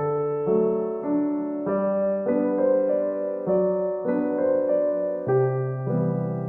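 Background piano music: a gentle, slow melody over sustained chords, a new note or chord about every half second.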